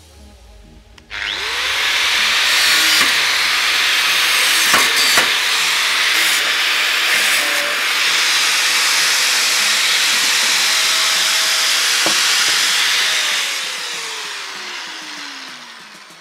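Angle grinder with a cutting disc spinning up about a second in and cutting through the old wire spokes of a wheel rim: a loud, steady cutting hiss with a few sharp clicks. Near the end the motor is switched off and spins down with a falling pitch.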